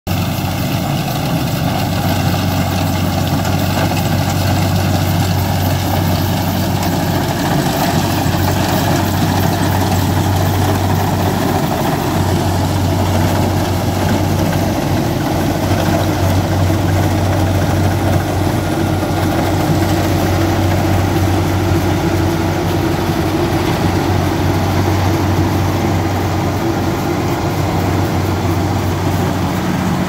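Kubota DC-68G rice combine harvester running steadily while cutting and threshing rice, its diesel engine holding a constant low hum under the machinery noise.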